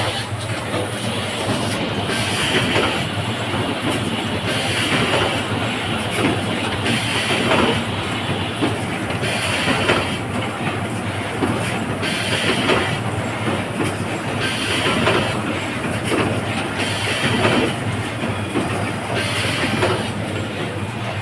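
Automatic wire harness crimping and connector insert plugging machine running: dense rapid clicking and clatter over a steady hum, with a louder burst of noise about every two and a half seconds as it cycles.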